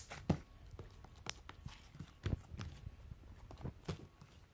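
Homemade clear glue slime being squished and worked by hand, giving irregular soft wet clicks and pops.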